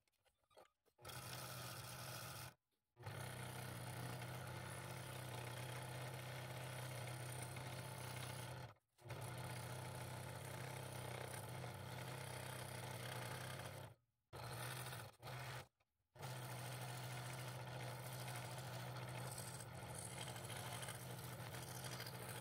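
Scroll saw running, its reciprocating blade cutting a fretwork pattern in thin wood: a steady hum with a rasp of cutting, which drops out abruptly for a moment several times.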